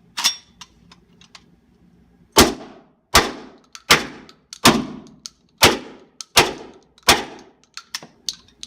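Suppressed 12-gauge short-barrelled shotgun firing low-brass steel shot through a KSG-SS suppressor: seven shots in quick succession, about three-quarters of a second apart, with smaller clicks and knocks between them.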